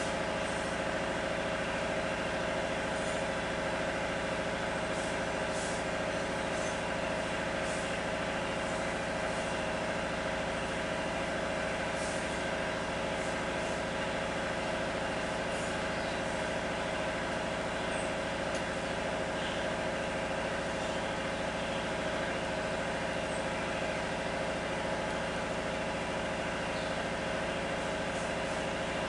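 A steady mechanical hum made of several constant tones, with a few faint high ticks.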